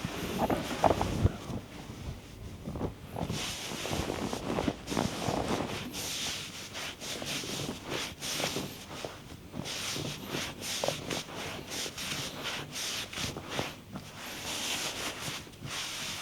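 Hands working on bare skin during a body massage: irregular rubbing and swishing strokes, with a couple of dull thumps about a second in.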